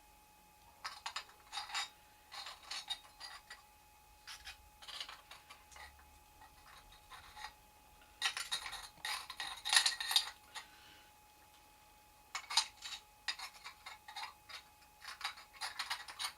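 Broken pieces of a doll being handled and tried together by hand: bursts of small clicks, scrapes and rubbing, loudest about halfway through. A faint steady tone runs underneath.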